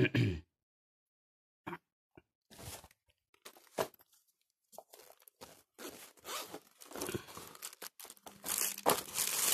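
Nylon tool pouch being opened and rummaged through: rustling of the fabric and plastic with small clicks of tools knocking together, sparse at first and busier over the second half.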